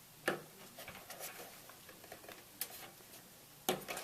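Small plastic clicks and taps of front-panel cable connectors and wires being handled while fitting a connector onto a motherboard header, with a sharper click a moment in and a quick cluster of clicks near the end.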